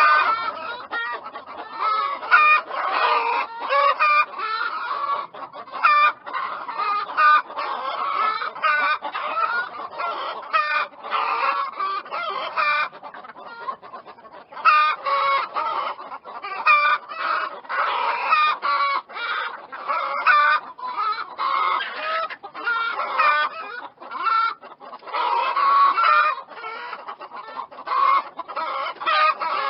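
A flock of chickens clucking continuously, many short calls overlapping one another.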